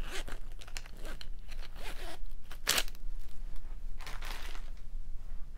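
Plastic packaging crinkling and rustling as small items are handled, with a sharper crunch a little under three seconds in.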